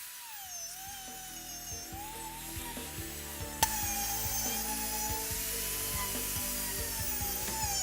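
Dremel rotary tool grinding down the burr of a deer shed antler: a high motor whine whose pitch sags and recovers as the bit bites into the antler. A sharp click comes about three and a half seconds in, after which the sound is a little louder.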